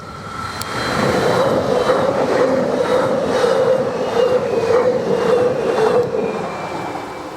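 An S-Bahn electric multiple-unit train passing close by. It grows louder over the first second, with a steady whine and a rhythm of wheel clicks over rail joints, then fades slightly near the end.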